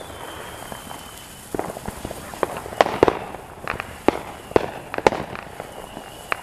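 Ground fountain firework hissing as it sprays sparks, with irregular sharp cracks and pops going off in it from about a second and a half in.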